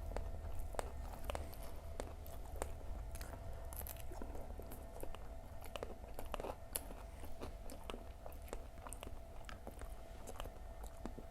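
Close-up eating of crunchy Indonesian fried fritters (gorengan): a person biting and chewing with many quick, irregular crunches and crackles. A steady low hum runs underneath.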